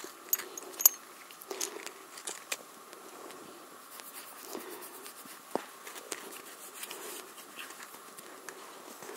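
Horses nosing and rubbing against a handheld camera at close range: scattered clicks, bumps and scrapes, the sharpest about a second in, with soft steps on sandy ground.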